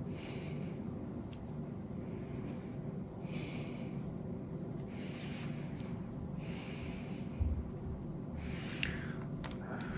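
A person breathing audibly through the nose, about five hissing breaths, with a few faint clicks from needle-nose pliers and a hand tool being handled and a low bump about seven seconds in.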